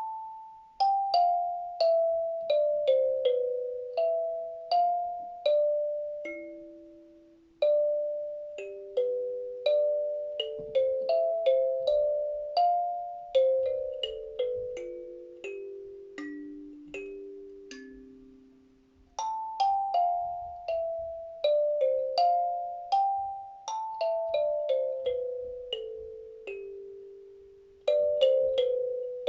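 Kalimba (thumb piano) played slowly, its plucked metal tines ringing out and fading one after another in mostly descending runs of notes. The playing falls in phrases, with short pauses about seven and nineteen seconds in.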